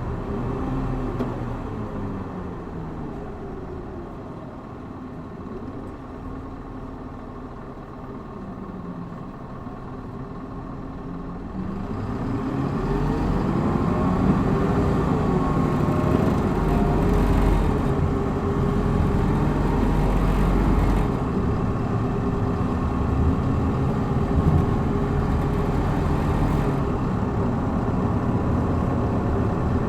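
Hino Blue Ribbon city bus diesel engine, heard from inside the bus, running quietly at low revs. About twelve seconds in it gets much louder as the bus accelerates hard in power mode, its engine note rising, then it runs on strongly under load.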